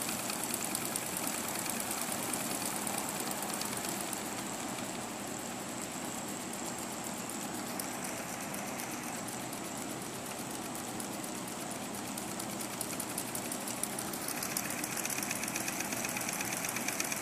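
Weeden Model 8 toy steam engine running fast under steam, its flywheel spinning, with a steady rapid beat too quick to count.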